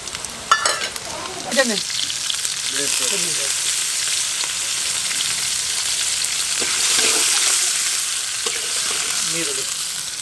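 Food sizzling and frying on a hot pan: a steady frying hiss that starts suddenly about a second and a half in and carries on evenly.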